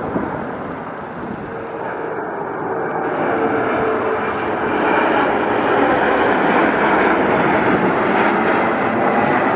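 American Eagle Bombardier CRJ-700's twin rear-mounted turbofan engines at approach power as the jet passes low overhead, the jet noise growing louder through the pass, with a steady engine whine running through it.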